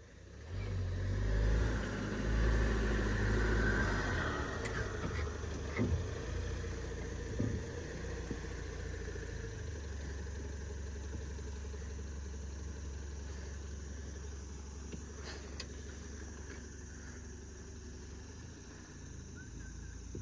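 Off-road vehicle engine revving hard for a few seconds, then running steadily at lower revs, with a few short knocks.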